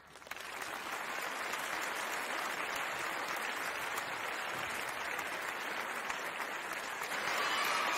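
Applause: a dense clapping that builds over the first half second and then holds steady. A few higher pitched tones join near the end.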